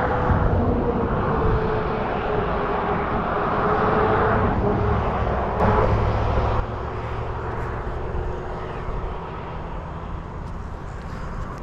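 A motor vehicle passing by: engine and tyre noise with an engine tone that slowly falls in pitch. The sound drops off suddenly a little past the middle.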